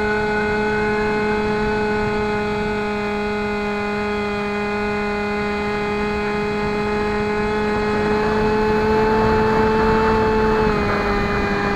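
Electric motor and propeller of a Bixler RC model plane running steadily, a whine with air rushing past, heard from a camera on board. About ten and a half seconds in the pitch steps down a little.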